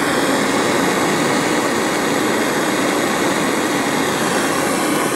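Handheld gas blowtorch burning steadily with a constant rushing hiss, its flame heating a soft-solder joint on a copper steam pipe so the solder flows round the joint.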